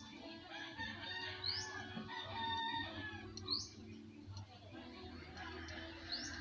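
A rooster crowing with chickens clucking, and a short, high, rising chirp about every two seconds, over a low steady hum.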